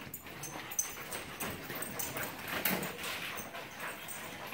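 Puppies playing chase: short whines and small dog sounds over the quick patter and scuffle of their paws on the floor.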